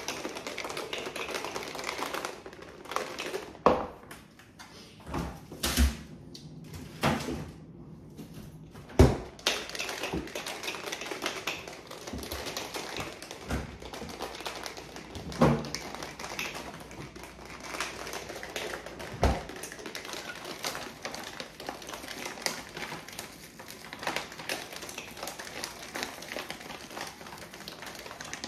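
Shaker bottle being shaken hard with ice cubes, milk and protein powder inside: a fast, continuous rattle of ice against the bottle, with louder single knocks scattered through. For a few seconds early on the rattle thins to a handful of separate knocks before picking up again.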